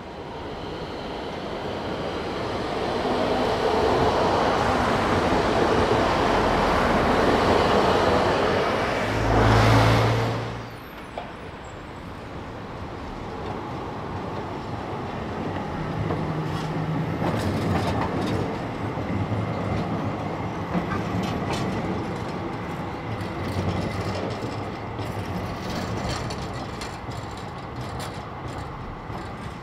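City trams running past on street track: a rumble builds to a loud peak and drops off suddenly about ten seconds in, then an older two-car tram set rolls by with a low motor hum and scattered clicks of wheels over rail joints and points.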